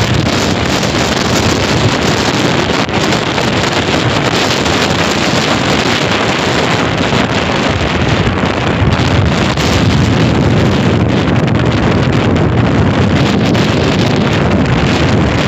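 Strong sea wind blowing hard over the microphone: a loud, steady rushing rumble.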